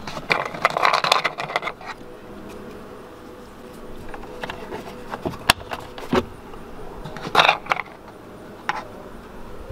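Hands fitting plastic trim caps onto a van's interior door panel: scattered plastic clicks, taps and rustling, with a louder cluster of clicks about seven seconds in.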